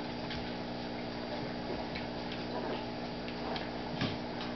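A blue heeler and a Chihuahua puppy play-wrestling on a rug: scattered light clicks and taps, with a soft thump about four seconds in, over a steady hum.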